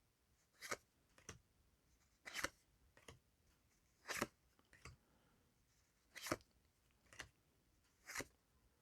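Faint, short flicks of trading cards being handled and slid through a stack one at a time. A stroke comes roughly every two seconds, each followed by a softer tick.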